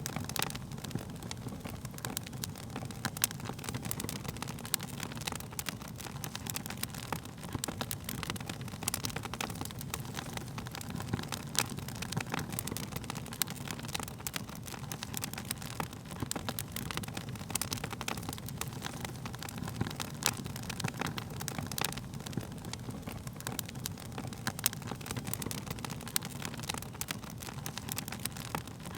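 Wood fire burning with a steady low rumble of flames and frequent sharp crackles and pops of burning wood.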